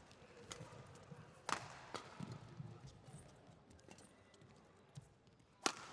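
Badminton rally: rackets striking a shuttlecock in a series of sharp cracks, the loudest near the end, with players' footsteps on the court.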